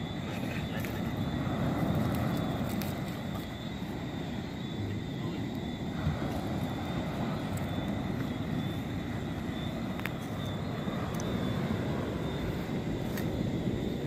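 Steady low rumbling beach ambience that swells and eases slowly, with a couple of faint clicks.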